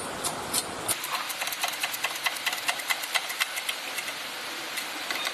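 A new bearing being pressed into a belt tensioner pulley: a quick, irregular run of light metallic clicks over a faint steady hiss. The clicks thin out in the last second or two.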